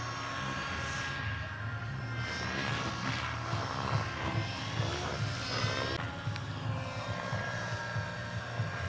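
Large-scale RC Bell 206 JetRanger model helicopter running on the ground with its model turbine at idle: a steady high whine over the low pulsing beat of the turning main rotor.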